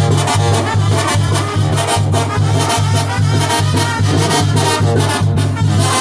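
Loud Latin dance music with brass over a steady, pulsing bass beat.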